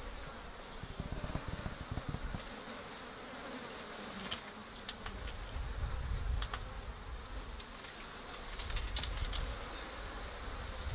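Insects buzzing close by, over a low, uneven rumble that swells and fades twice. A few faint, short, high ticks come partway through.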